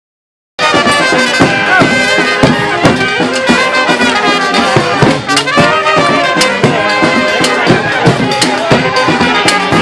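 Brass street band playing a hora: trumpets and trombones carrying the tune over a steady beat. The music starts abruptly about half a second in.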